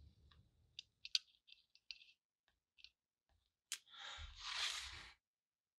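Solder and flux crackling and spitting in small, irregular clicks as a soldering iron melts solder onto a rivet on a steel lantern plate. Near the end there is one sharp click, then about a second of rustling hiss.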